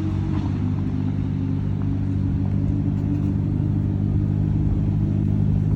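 A car engine running at a steady idle, a deep even rumble that grows slightly louder towards the end.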